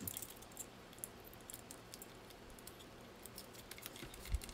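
Faint, scattered small clicks and taps of 3D-printed plastic parts and a precision screwdriver being handled during assembly, with a soft thump near the end.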